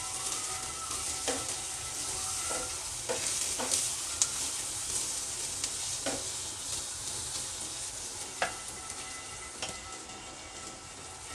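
Chopped onions and ground spices sizzling in hot oil in a nonstick frying pan, stirred with a wooden spatula that scrapes and taps against the pan now and then.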